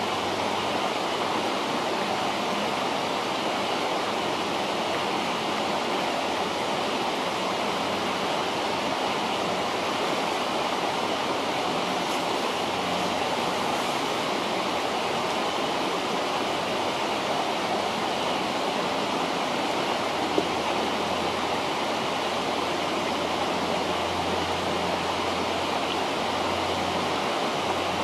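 River flowing, a steady rushing of water, with one short sharp click about two-thirds of the way in.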